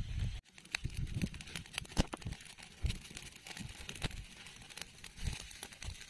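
Small open fire of dry leaves and twigs crackling, with irregular sharp snaps and pops.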